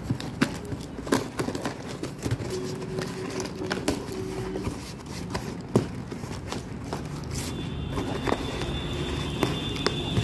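Corrugated cardboard shipping box being torn open by hand: irregular crackling, scraping and ripping of cardboard and tape. The packing is stiff and hard to tear. A faint steady high tone sounds over the last few seconds.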